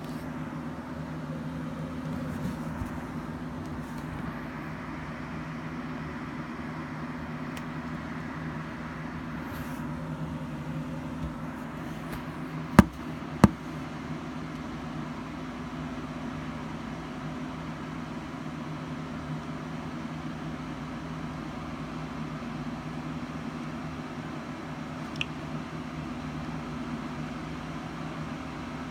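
A steady low mechanical hum, with two sharp clicks about half a second apart near the middle and a faint tick later.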